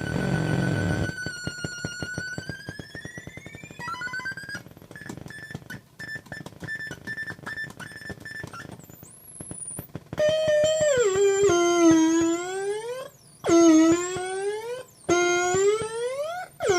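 Homemade CMOS 40106 square-wave oscillator noise synth sounding electronic tones: a buzzing tone that bends slowly in pitch over a fast low ticking pulse, then from about ten seconds in loud tones that dip and sweep upward again and again, cutting off briefly between sweeps.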